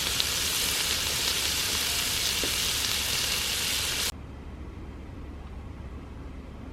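Pork sizzling on a grill pan, a dense steady hiss that cuts off abruptly about four seconds in, leaving a low steady hum.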